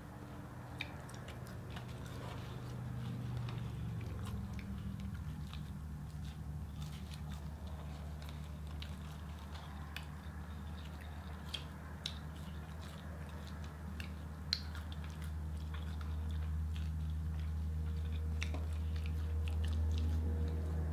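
Two people chewing and biting into cheeseburgers and French fries, with many small wet mouth clicks and smacks, over a low steady hum.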